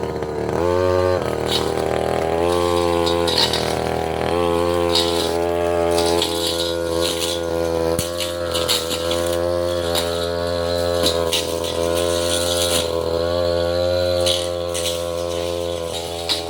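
Tasco 33 Pro two-stroke brush cutter running at high revs, its pitch dipping briefly about a second in and then wavering slightly, with repeated short rattling bursts as the blade cuts through saplings and small roots.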